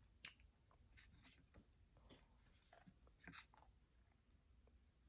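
Near silence with faint, scattered small clicks and scrapes of eating: a plastic spoon stirring in a foam cup of egg drop soup, and chewing.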